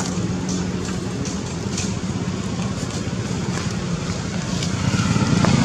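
A steady low engine hum with faint ticks above it, growing louder near the end.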